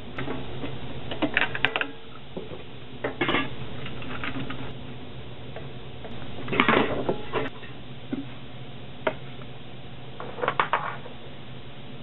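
Thin sheet metal clinking and rattling in about five short bursts as hands handle and bend the bolted tabs around a hole in a metal can, over a steady low hum.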